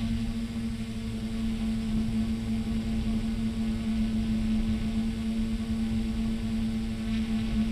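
Traxxas Aton quadcopter's motors and propellers humming at a steady pitch in flight, heard through the GoPro carried on board, over a low rumble of prop wash and wind.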